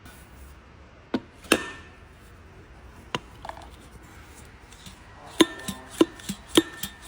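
Metal struck against metal in tool work: three separate knocks, then from about five seconds in a steady run of blows about twice a second, each one ringing.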